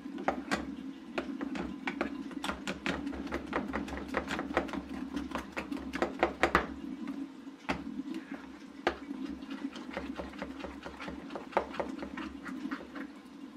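A pot of jute-leaf green sauce boiling while it is stirred with a spatula: irregular small ticks and pops over a steady low hum.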